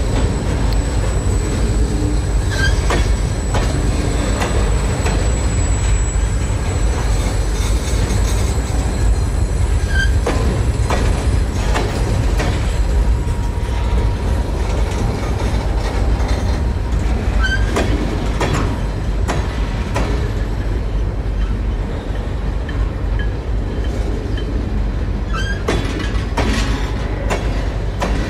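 Norfolk Southern freight train of tank cars rolling slowly past: a steady low rumble with scattered wheel clicks and clanks. A thin high wheel squeal rings through the first ten seconds or so, and short squeaks come every few seconds.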